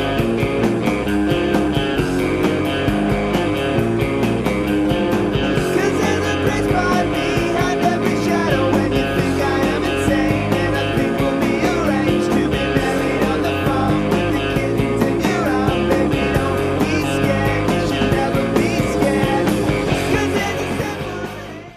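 Outro music with a steady drum beat, fading out at the very end.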